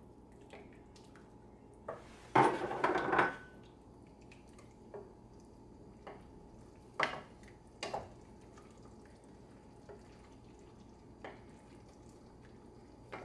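A wooden spoon stirs a thickening stew in a stainless steel pot, giving scattered light knocks against the pot. A louder stretch of stirring lasts about a second, starting a little over two seconds in.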